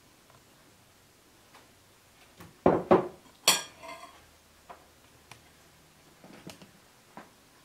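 Kitchen bowls and utensils clinking as ingredients are mixed: three sharp knocks of glass and ceramic a little under three seconds in, the last ringing briefly, then scattered lighter taps.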